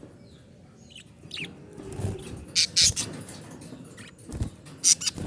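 Small pet parrots calling: soft chirps, then loud, harsh squawks about halfway through and again near the end, with a few dull thumps.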